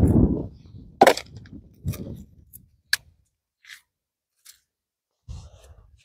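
Oyster shells knocking and cracking as they are prised off the rocks and handled: three sharp knocks about a second apart, then a couple of faint ticks, after a low rumble at the start.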